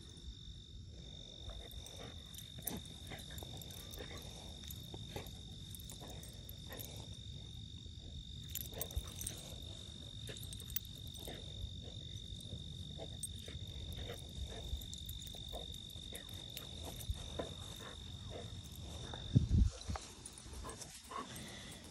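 An insect calling with one steady, high-pitched note that stops near the end, over faint rustles and small knocks, with a brief thump shortly before the end.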